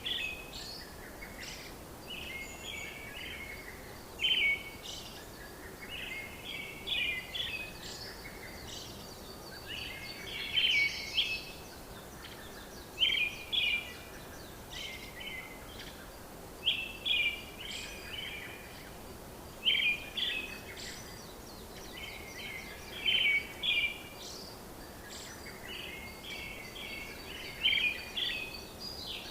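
Birds chirping: clusters of short, high chirps every few seconds over a faint steady hiss.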